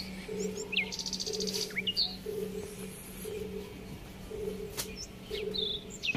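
Wild birds chirping: scattered short call notes, with a brief rapid trill about a second in. Under them runs a faint steady low hum with a tone that pulses about once a second.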